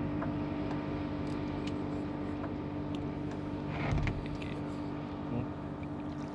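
Steady, even hum of a fishing boat's motor, with a few faint clicks and a short knock about four seconds in.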